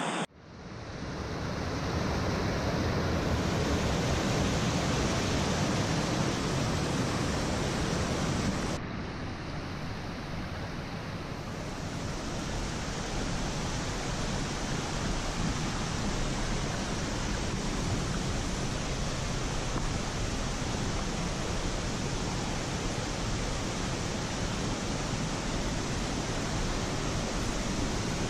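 Steady rush of a mountain creek's flowing water. It fades in just after the start and drops a little in level about nine seconds in.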